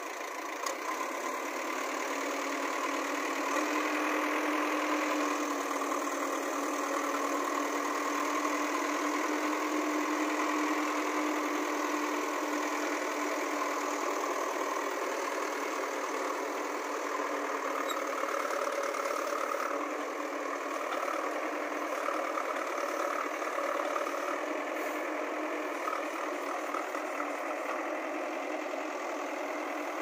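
JCB 3DX backhoe loader's diesel engine running steadily while the operator works the backhoe arm to pull the machine out of a ditch. It runs a little louder for the first dozen seconds, with a steady hum held under it, and then eases.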